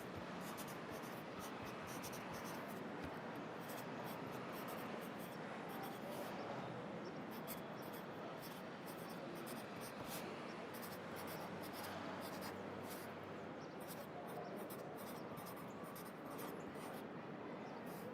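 Pencil writing on paper, many quick, irregular scratching strokes, over a steady hum of city traffic ambience.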